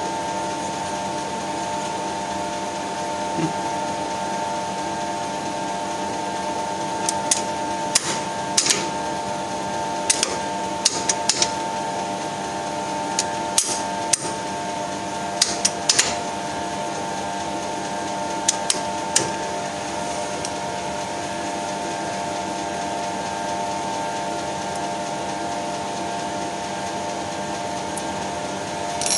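Steady machine hum in a lathe workshop, with a scatter of sharp metallic clicks and taps between about 7 and 19 seconds in.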